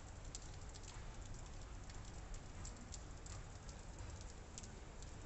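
Wet snow falling on clay roof tiles close by: a faint steady hiss with irregular light ticks as flakes hit.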